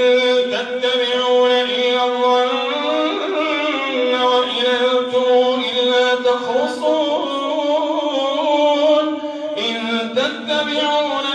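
A man's voice chanting Quran recitation in the melodic tajweed style, drawing out each phrase in long held notes.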